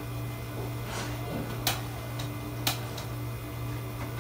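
Steady low hum of drink-station equipment, with two sharp clicks about a second apart and a few fainter ticks as things are handled at the soda fountain.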